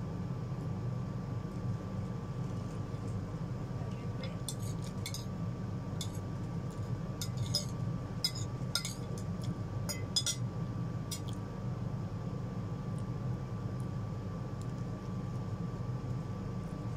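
Spoon and fork clinking and scraping against a plate while eating, a scatter of short light clinks, most of them in the middle stretch, over a steady low hum.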